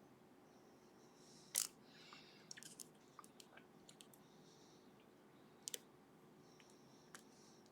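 Lock pick and tension wrench working in a sleeved Ruko lock with barrel drivers: faint light scraping and scattered small clicks as the barrel drivers set and catch in the milling, the loudest click about a second and a half in and a quick double click near six seconds.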